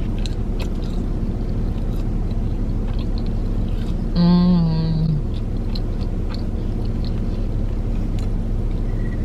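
Steady low hum of a car cabin with the engine running, with scattered soft chewing and mouth clicks from someone eating fries. About four seconds in there is a loud hummed tone lasting about a second, dropping slightly in pitch.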